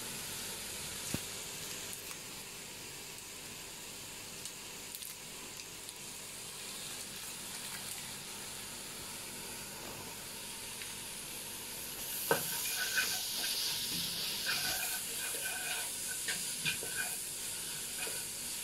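Grated carrot, leeks and green chilli sizzling softly in butter in a nonstick wok. About two-thirds of the way through, a spatula starts stirring and scraping them around the pan, and the sizzling grows louder.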